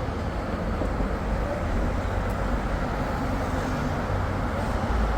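Steady low rumble of road and engine noise from a moving car.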